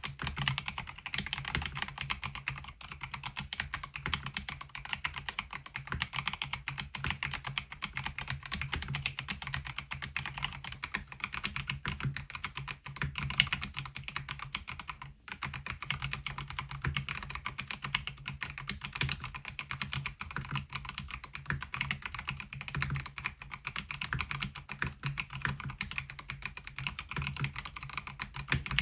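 Fast, continuous typing on a MelGeek Mojo68 mechanical keyboard fitted with MOA-profile keycaps: a dense patter of key clacks, with a brief pause about halfway through.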